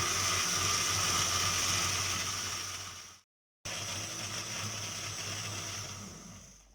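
Electric countertop blender running at speed, frothing a mix of milk, lemon juice, sugar and triangle cheese. The sound cuts out abruptly a little past three seconds in, starts again about half a second later as another pulse, and winds down near the end.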